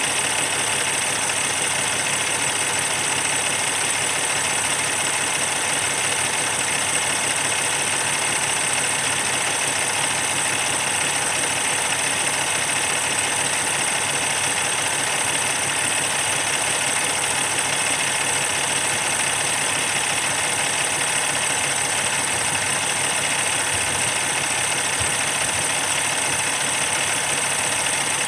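2016 Cummins ISX15 inline-six diesel engine idling steadily, with a steady high whine over the engine note.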